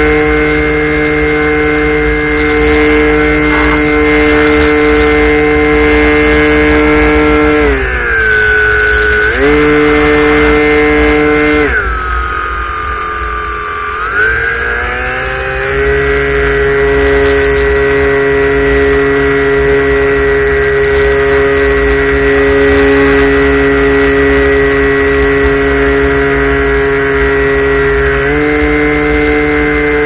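Radio-controlled model airplane's motor and propeller, heard from the onboard camera, droning at a steady pitch. The pitch drops twice as the throttle is eased back, about eight seconds in and again from about twelve to fifteen seconds, then rises again, settling slightly lower before stepping back up near the end.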